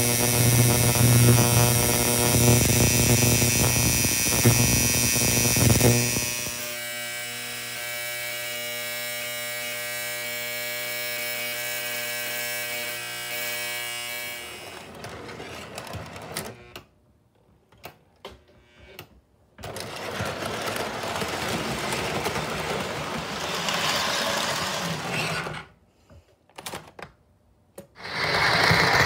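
Electric buzzing of a Lionel 3656 stockyard corral's vibrating platform, the vibration that walks the cattle figures through the pens. The steady hum is loud for about six seconds, then continues quieter. About halfway through it gives way to an irregular noise that cuts out abruptly several times.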